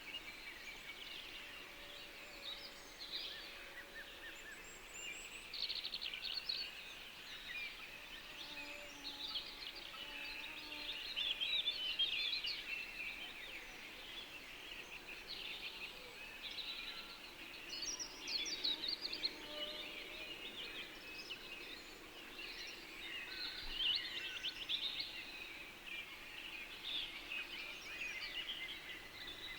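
A chorus of many birds singing at once: dense, overlapping chirps and trills that keep going throughout, busiest around the middle and again near the end.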